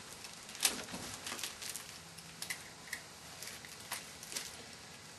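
Hands working at a tightly cloth-wrapped parcel: scattered light rustles and about half a dozen small sharp ticks, unevenly spaced, as the wrapping is handled and pulled at.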